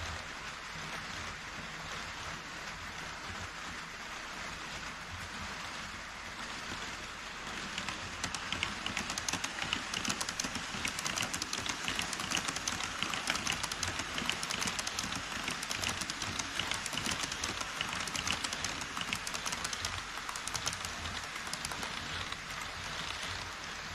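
HO scale model trains running across a truss bridge: a steady hiss at first, then from about eight seconds in a dense, rapid clatter of wheels over the track as a model E5 Shinkansen and a locomotive-hauled freight train pass, easing slightly near the end.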